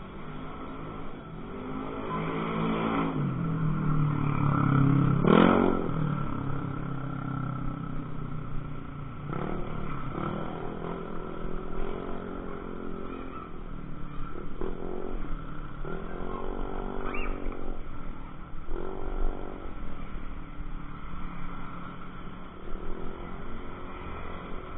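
Small motorcycles passing one after another on a street, each engine note swelling and fading as it goes by. The loudest passes about five seconds in.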